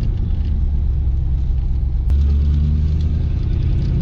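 Carbureted car engine running while driving, heard from inside the cabin as a steady low rumble. About two seconds in there is a sharp click, and the engine note gets louder.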